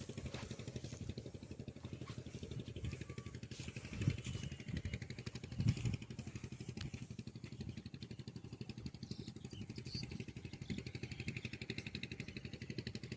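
A small engine running steadily with a fast, even chug, with a couple of louder knocks partway through.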